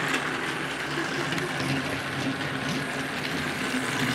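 Battery-powered TrackMaster Flying Scotsman toy engine running steadily along plastic track: a constant motor whirr and wheel rattle.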